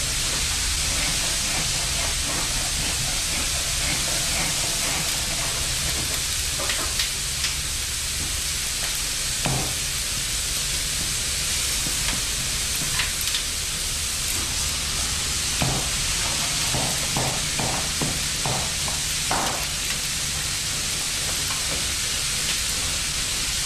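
Steady sizzling hiss of food frying, over a low steady hum, with scattered clicks and clinks, several in a quick run between about fifteen and twenty seconds in.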